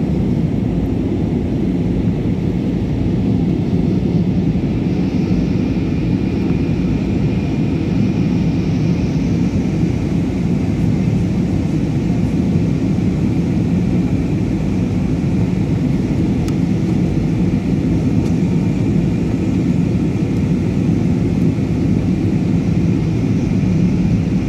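Steady roar of a passenger airplane in flight, heard inside the cabin: engine and airflow noise, deep and even, with a faint high whine above it.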